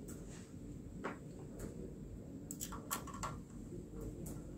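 Faint scattered clicks and taps of metal parts being handled: a screw being set and a screwdriver being worked on a server's metal GPU riser bracket.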